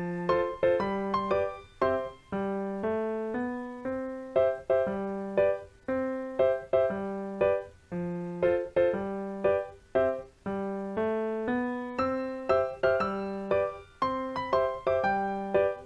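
Background keyboard music: a light, evenly paced melody of separately struck notes over a repeating low bass figure.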